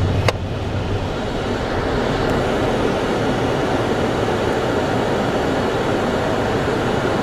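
Steady rumble and hiss of a car's interior in slow city traffic, with one sharp click about a third of a second in.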